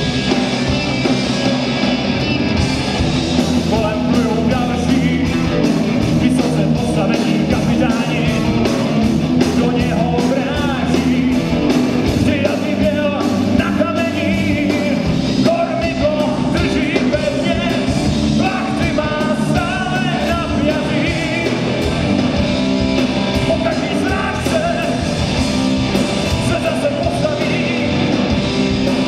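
Hard rock band playing live: electric guitars, bass guitar and drums, with a singer's voice over them.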